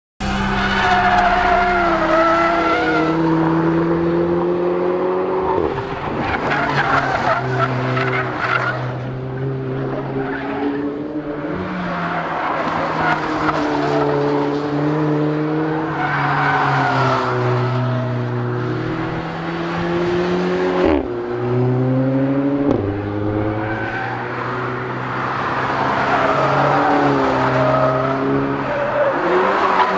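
Mercedes-Benz GLA 45 AMG's turbocharged four-cylinder engine accelerating hard, its pitch climbing through the revs and dropping sharply at each upshift, several times over.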